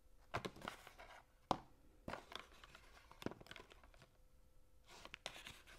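Faint handling noise: a few scattered light clicks and taps, with a short rustle near the end, as small items and papers are moved about on a table.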